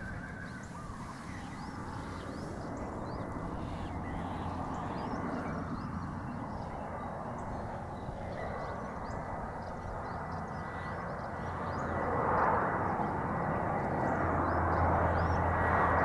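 Birds chirping throughout over a low drone that grows louder, becoming the steady hum of an approaching airplane engine in the last few seconds.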